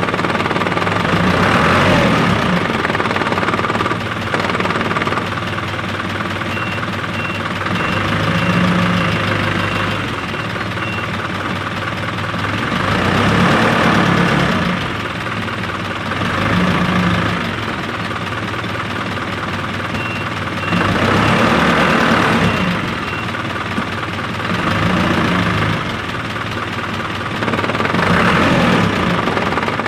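Isuzu 4HL1 four-cylinder diesel engine running, its note rising and falling every few seconds. It is being test-run to check the clutch and gear shifting after the secondary clutch cylinder was replaced.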